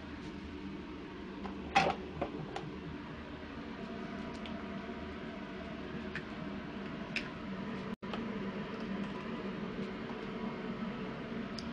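Steady hum of a ventilation fan, with a few light clicks and a louder knock about two seconds in.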